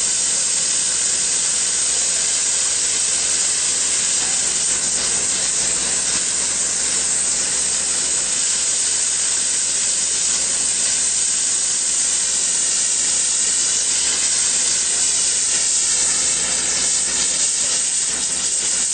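Hypertherm Powermax plasma cutter torch cutting metal: the arc and compressed air give a loud, steady hiss throughout.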